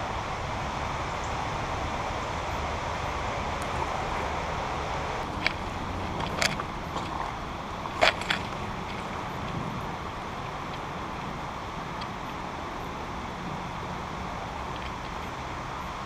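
Steady rush of a shallow creek running over rocks, with a few short sharp clicks between about five and eight and a half seconds in.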